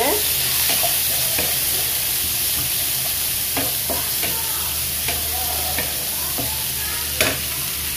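Onion and green chillies frying in cumin-tempered olive oil, sizzling steadily while being stirred, with a few sharp knocks of a utensil on the pan.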